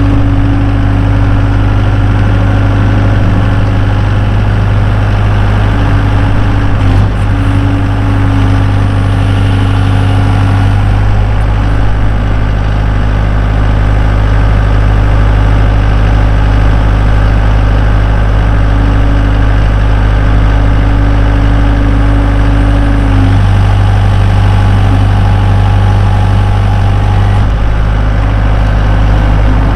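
2012 Bobcat S185 skid steer's four-cylinder turbo diesel engine running steadily, with a higher steady tone that comes and goes several times over it.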